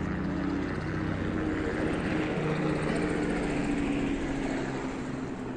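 Camera drone's propellers whirring as it flies, a steady multi-tone hum whose pitch drifts slowly as the motors change speed, easing off near the end.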